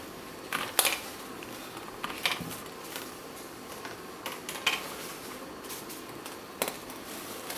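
Scattered sharp clicks and knocks from an Arm's Reach co-sleeper's frame, its release buttons and joints being pressed and worked as it is folded. The frame is jammed and will not fold easily.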